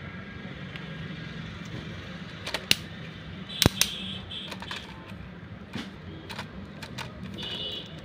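Irregular plastic clicks and clacks as the arm and bucket of a toy remote-control excavator are moved by hand. The loudest click comes a little before halfway, over a steady low hum.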